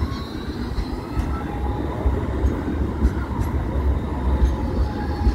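Alstom Citadis electric light rail tram running past close by: a steady low rumble of wheels on the rails that grows stronger about a second in, over a faint steady electric whine from its traction equipment.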